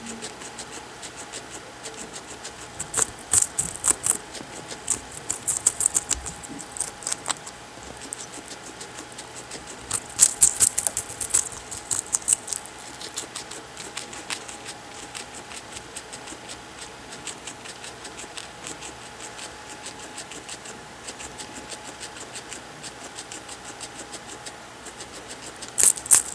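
Guinea pig gnawing and crunching on a raw carrot held in a hand: rapid crisp bites in bursts of a second or two, with quieter nibbling between them.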